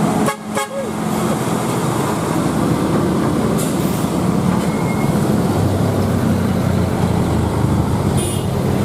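Heavy truck's diesel engine running steadily, with a short hiss of air near the end.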